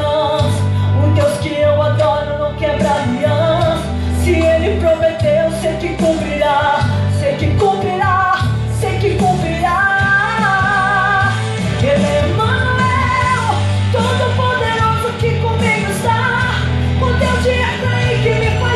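Gospel worship song: a woman singing held, wavering notes over a full band with a steady low bass.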